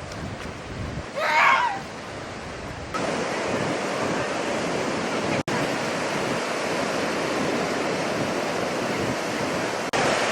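Ocean surf washing steadily, with wind on the microphone. A brief high-pitched cry sounds about a second in.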